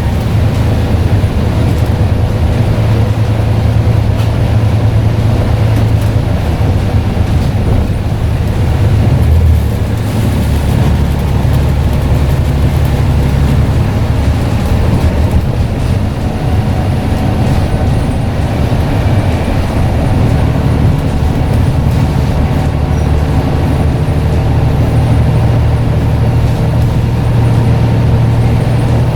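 Diesel engine of a Scania N94UD double-decker bus running steadily under way with a deep drone. The drone changes a little about a third of the way in and again about two-thirds of the way in.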